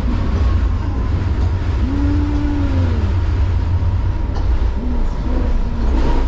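Light-rail train running, heard from inside the passenger car: a steady low rumble, with a faint steady whine early on and a short tone that rises and falls about two seconds in.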